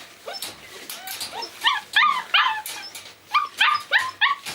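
Puppy yapping: a few faint yips, then a quick run of short, high-pitched yaps from about a second and a half in.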